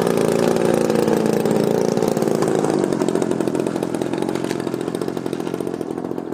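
DLE 35 single-cylinder two-stroke petrol engine of a Yak 54 RC aerobatic plane running steadily, gradually fading from about halfway through as the plane rolls away down the runway.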